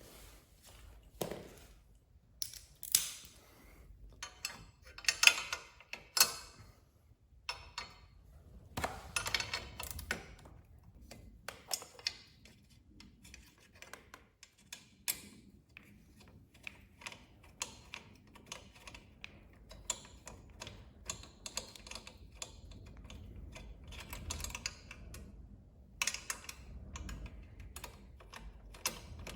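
Irregular small clicks, taps and scrapes of an Allen key and hand tools working the bolts of a motorcycle's metal auxiliary-light bracket. A few louder, longer scrapes come in the first ten seconds.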